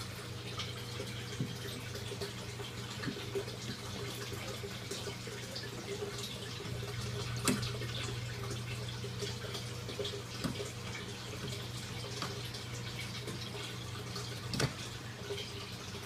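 Water trickling and splashing into an IBC-tote aquaponics fish tank as the system circulates, over a steady low hum.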